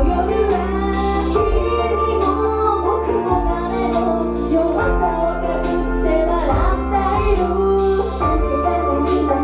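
A woman singing a J-pop idol song live over loud music with a steady beat and a low bass line.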